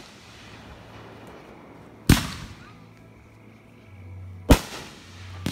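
Aerial firework shells bursting: two loud, sharp bangs about two and a half seconds apart, then a fainter pop near the end.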